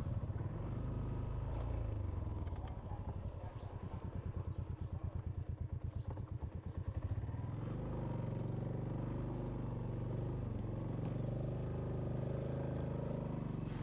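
Small motorbike engine running as the bike rides along, with a fast regular pulsing for a few seconds in the middle, then settling into a steady hum.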